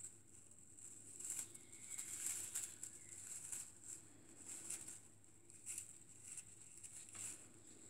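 Faint, irregular rustling and scratching of dry hay and a plastic crate under kittens' paws as they clamber about.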